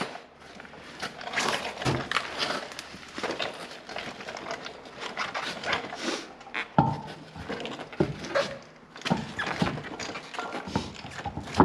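Hand tools being gathered up and handled, giving irregular knocks, clunks and clatter throughout.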